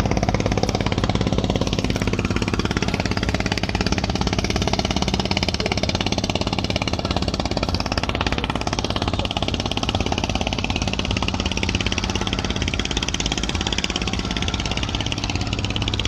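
An engine running steadily, a rapid, even knocking beat over a low hum.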